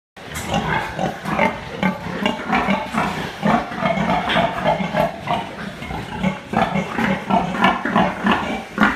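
Many pigs grunting at once in a sow barn, with short, overlapping grunts, starting abruptly just after the start.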